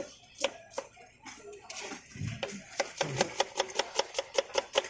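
Kitchen knife chopping onion on a wooden cutting board: a few scattered strokes at first, then from about halfway a fast, even run of knife taps, about five a second.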